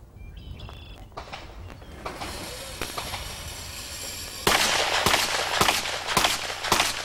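Pistol shots fired in steady rapid succession: five sharp cracks about 0.6 seconds apart, starting about four and a half seconds in.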